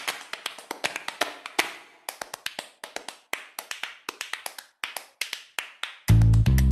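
Quick, uneven sharp taps in a flamenco-style percussion rhythm. About six seconds in, music with a heavy bass line and guitar comes in loudly.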